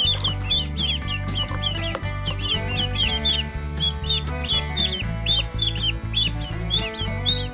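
Ducklings peeping again and again, many short high calls overlapping, over background music with a steady low bass.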